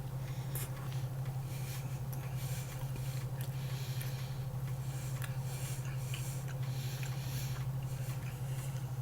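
A person chewing a dense meat snack stick, with faint irregular wet clicks from the mouth, over a steady low electrical hum.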